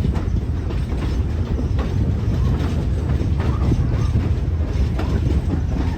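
Passenger train running along the track, heard from aboard a car: a steady low rumble with faint scattered clicks from the wheels on the rails.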